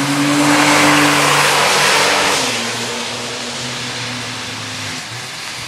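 Porsche 911 (997) flat-six passing on a wet track, loudest about a second in with a hiss of tyre spray over the engine. The engine note then drops in two steps and fades.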